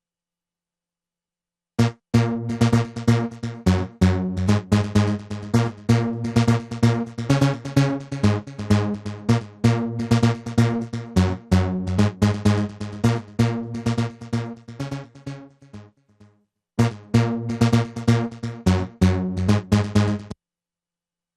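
Electronic music with a drum-machine beat and synthesizer, played back as a project mix. It starts about two seconds in, drops out for a moment near the 16-second mark, then resumes and cuts off abruptly near the end.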